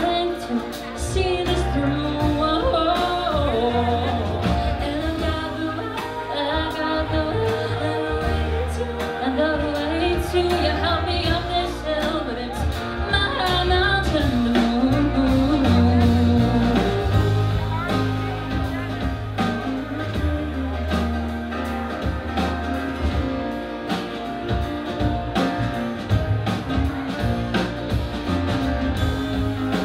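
Live band playing a song: women's voices singing over strummed acoustic guitars, electric bass and a Nord Stage keyboard.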